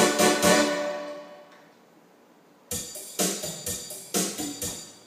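Electronic keyboard music with drum accompaniment: a phrase rings out and fades, then after a short pause a closing flourish of a few struck chords with drum hits ends the song.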